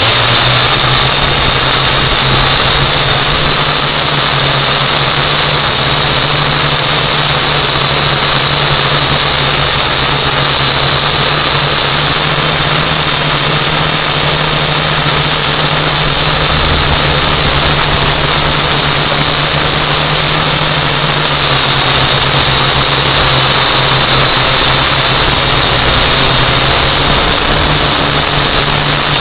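Holy Stone U818A quadcopter's four motors and propellers whining steadily in flight, heard very loud and close from the drone's own onboard camera. The high whine holds a nearly constant pitch, over a steady low hum.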